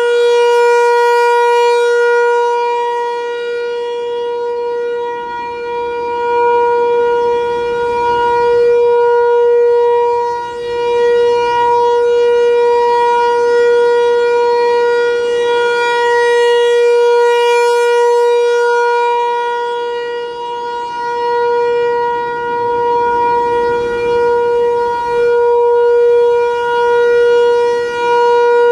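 ASC T-128 outdoor warning siren sounding a steady single tone during its monthly test, its pitch holding level while the loudness swells and fades every several seconds as the rotating horn sweeps past.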